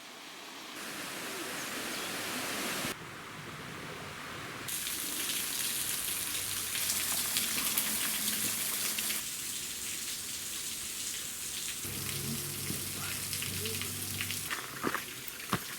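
Rushing water of a waterfall, a steady hiss whose level and tone change abruptly several times.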